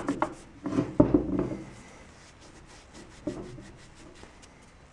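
A cloth shop rag rubbing and wiping over the oily differential housing in quick scrubbing strokes, loudest about a second in, with another short rub a little past three seconds.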